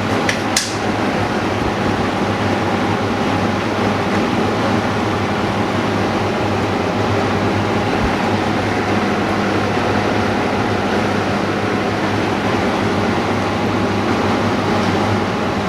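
Steady mechanical whir with a low hum from repair-shop machinery running, with a couple of sharp clicks right at the start.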